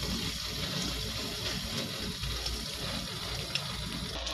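Beaten eggs sizzling steadily in hot oil in a wok, over the even rush of a butane torch flame heating it.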